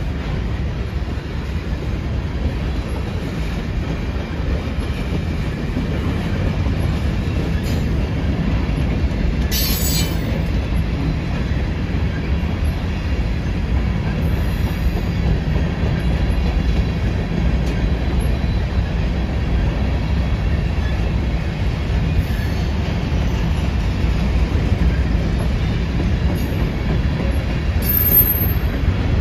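Freight train's tank cars and covered hopper cars rolling slowly past, a steady low rumble of wheels on rail. A brief high wheel squeal comes about ten seconds in, and a shorter one near the end.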